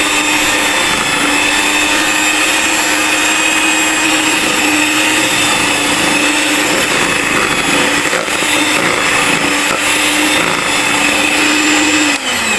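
Miyako electric hand mixer running at medium speed, its twin beaters creaming margarine and sugar in a plastic bowl, with a steady motor whine. About 12 s in the pitch falls as the motor is switched off and winds down.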